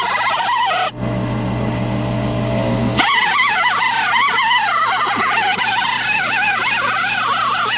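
A power grinding or cutting tool working the car's sheet-metal body, its whine rising and falling in pitch as the load changes. Between about one and three seconds it gives way to a steady low hum, then the grinding starts again.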